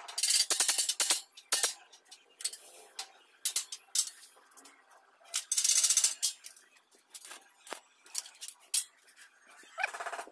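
Stainless steel slats and tubing clinking and rattling as they are handled and tapped into place in a gate frame: irregular sharp metallic clicks and short jingly clusters, loudest near the start and about six seconds in.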